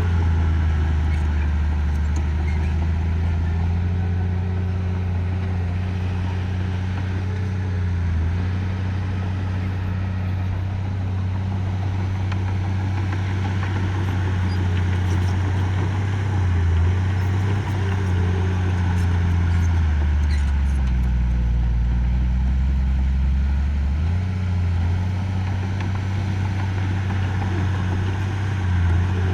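Diesel engine of a bulldozer or dump truck running steadily. About two-thirds of the way through, its note drops lower for a few seconds, then comes back up.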